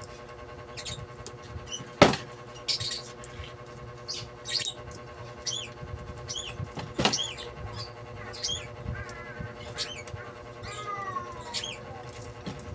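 Enamelled copper magnet wire being pulled by hand through the slots of an alternator stator while it is rewound, giving a string of sharp clicks and ticks, the loudest about two seconds in and another about seven seconds in. Short high squeaks come and go throughout, over a faint steady hum.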